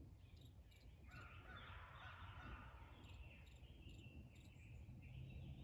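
Faint, distant gobbling of wild turkey gobblers, starting about a second in, over the thin chirps of small birds.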